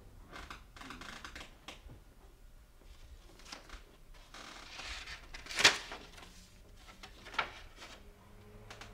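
Quiet handling sounds at a front door: small clicks and rustles from a doorknob and a sheet of paper, with a sharp click about halfway through and a second, softer one about a second and a half later.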